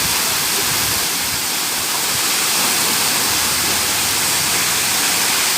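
Waterfall rushing: a loud, steady hiss of falling water that does not change.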